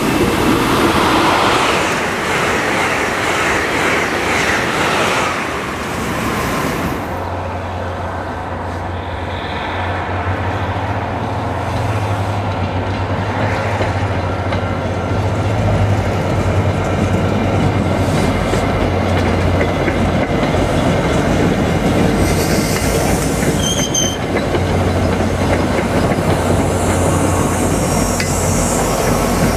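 Amtrak Acela Express high-speed electric trainset rushing past at speed, a loud broad rush that fades about six seconds in. Then an MBTA commuter train moves slowly along a station platform: a steady low hum from its diesel locomotive over wheel rumble and clacking, with a brief high wheel squeal about 24 seconds in.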